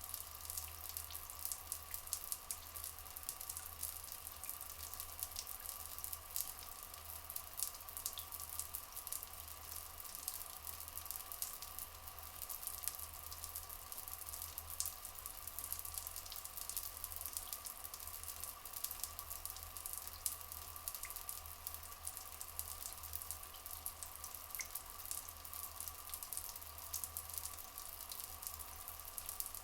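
Flowing water trickling steadily, a dense fine patter over a faint steady hum, with a few brief faint chirps.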